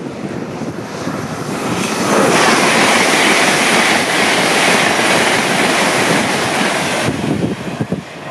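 An LNER Azuma high-speed train passing close by at speed: a rushing noise that builds over about two seconds, holds loud for about five seconds, then falls away abruptly as the end of the train goes past.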